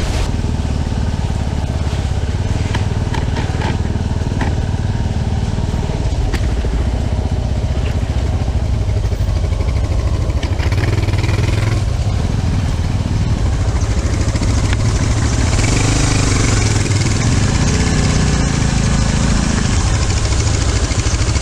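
Motorcycle engine running under way, a steady low rumble. About fourteen seconds in, a louder hiss joins it.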